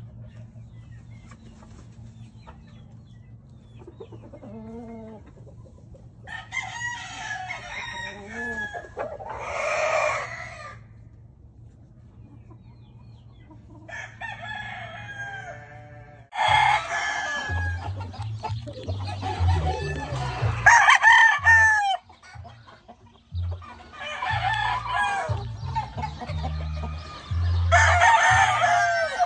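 Kelso gamecocks crowing repeatedly, with hens clucking between crows; the crows are louder in the second half.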